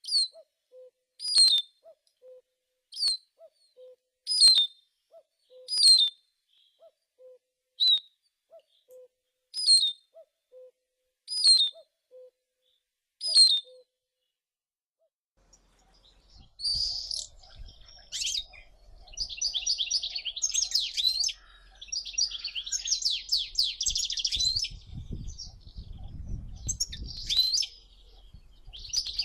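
Birdsong in two parts. First a bird repeats a sharp, high, falling call about every second and a half, each followed by a soft low note. From about halfway a songbird sings a fast, varied, twittering song over a low background rumble.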